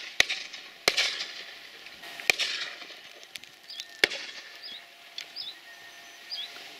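Shotguns firing at driven partridges: four shots in the first four seconds, each ringing out briefly. A few short, high chirping calls follow in the second half.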